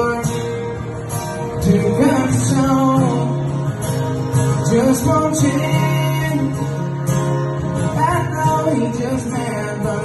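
Live acoustic country song: a man singing into a microphone over strummed acoustic guitars.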